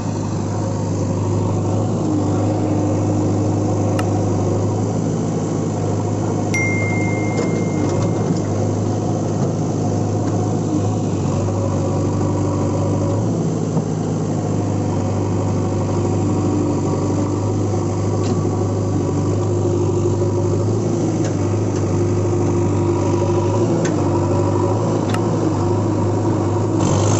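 A heavy-machine engine running steadily: a low, even drone with small shifts in pitch and no change in loudness.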